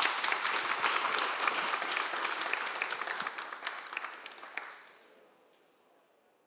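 Applause from an audience and panel, many hands clapping together, dying away about five seconds in.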